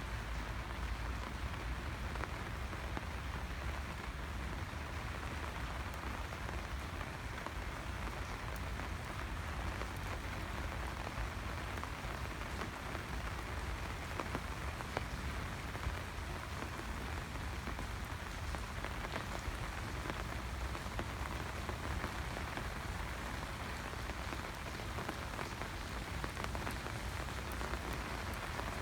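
Steady rain falling, an even hiss with many small scattered drop ticks, over a constant low rumble.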